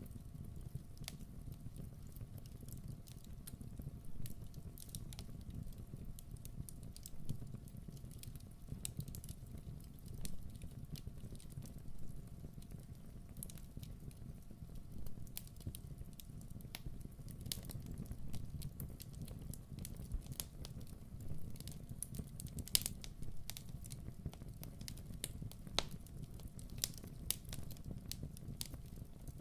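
Wood fire burning in a fireplace: a steady low rumble of flames with irregular sharp crackles and pops throughout.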